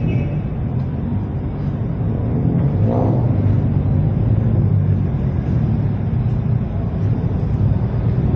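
Steady low outdoor rumble that wavers in level, with a brief voice about three seconds in.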